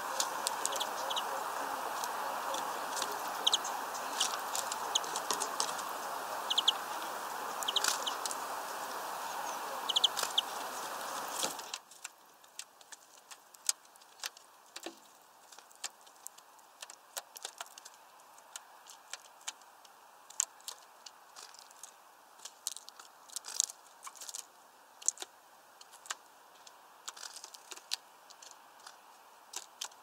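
European greenfinches feeding at a window bird feeder: scattered sharp clicks and taps of beaks on seed and feeder. They sound over a steady hiss that cuts off abruptly about twelve seconds in.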